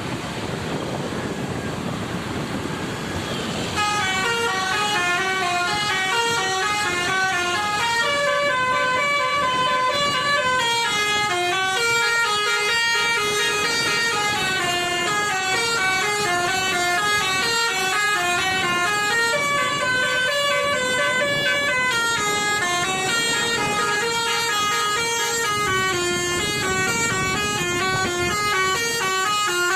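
Basuri telolet bus horn, a multi-tone musical horn, playing a long running melody of stepped notes up and down. It starts about four seconds in, over a rush of road and engine noise.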